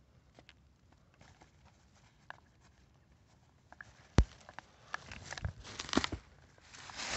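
Quiet for about four seconds, then a sharp knock as the camera is picked up. Crunching and rustling of dry fallen leaves follow as it is handled and moved.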